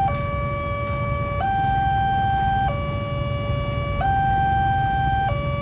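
Railway level-crossing warning alarm sounding, an electronic two-tone signal switching between a higher and a lower tone about every 1.3 seconds, the signal that a train is approaching. A steady low rumble of engines runs underneath.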